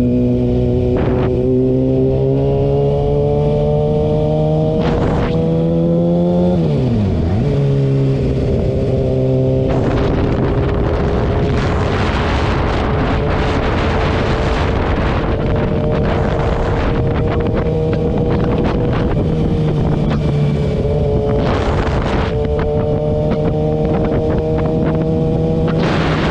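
Kawasaki ZX-6R 636's inline-four engine running under way, its revs climbing slowly, then dropping sharply and coming back up about seven seconds in. From about ten seconds on, engine speed holds steady under heavy wind rush on the microphone, with short gusts.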